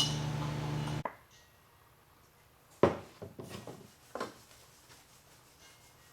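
A steady hum that cuts off abruptly about a second in, then a loud sharp knock followed by a short clatter of lighter knocks and one more knock, like tools or metal parts being set down while working on a car's exhaust manifold.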